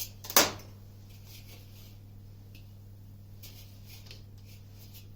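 One sharp knock about half a second in, followed by faint handling sounds over a steady low electrical hum.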